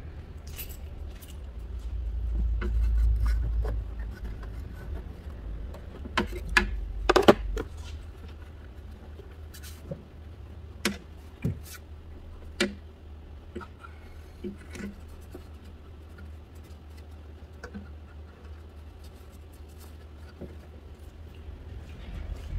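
Scattered light clicks and knocks, the loudest cluster about six to seven seconds in, over a low steady rumble.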